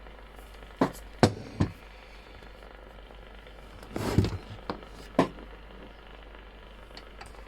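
Half a dozen sharp knocks and clicks of small hard objects being handled, with a brief rattle about four seconds in, over a low steady hum.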